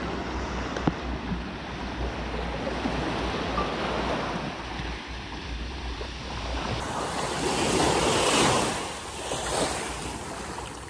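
Small sea waves washing up on a sandy beach, with wind rumbling on the microphone; the wash swells loudest about eight seconds in.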